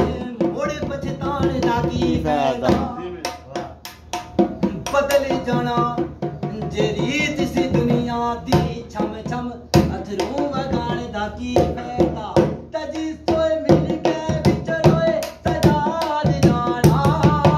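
A man singing Pothwari verses in long, held and bending notes, accompanied by a hand-played dholak barrel drum striking a continuous rhythm.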